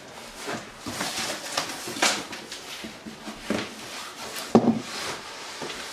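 A large cardboard box packed with styrofoam being turned over and handled on a countertop: cardboard scraping and rustling in short strokes, with a sharp knock about four and a half seconds in.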